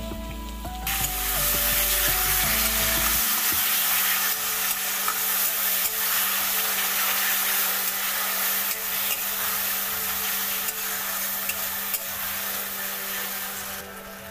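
Mashed taro leaves sizzling loudly in hot mustard oil in a metal kadai, stirred with a metal spatula. The sizzling starts about a second in and dies down near the end.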